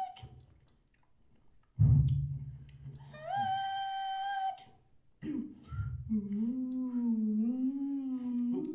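Performers' voices making non-verbal sounds into close microphones. About two seconds in there is a loud, low, unpitched rumble. Next comes a high held note that slides up as it starts. Over the second half, a lower hummed note wavers up and down.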